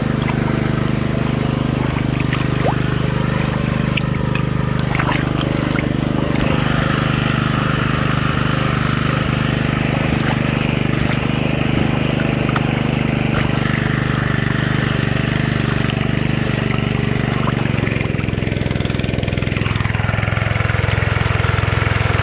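Small petrol engine of a 3-inch Keene suction dredge running steadily, driving the dredge's water pump. Its note shifts slightly near the end.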